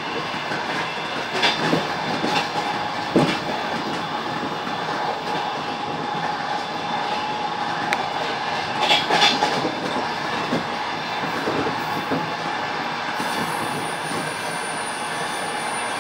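Passenger train running, heard from a passenger car: a steady rumble with the wheels clacking over rail joints and a faint steady whine. The knocks are loudest about a second and a half in, about three seconds in, and in a cluster about nine seconds in.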